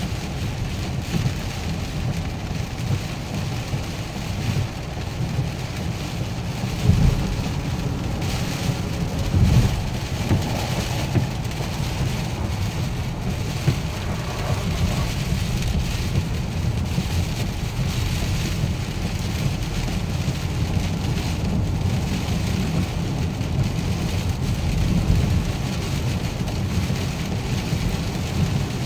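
Heavy hurricane rain drumming on a moving car, over a steady low rumble of wind and road noise, with two louder swells about seven and ten seconds in.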